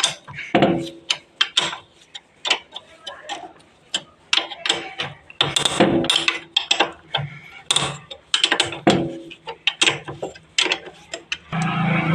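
A 10 mm spanner working the four top cylinder-head nuts of a Hero Splendor Plus engine: quick, irregular metallic clicks and clinks in short clusters as the nuts are loosened.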